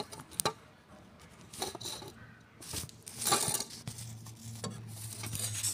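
Handling noise from a camera being set down and settled in place: a couple of sharp clicks at the start, then a few rubbing, scraping bursts. A low steady hum comes in about four seconds in.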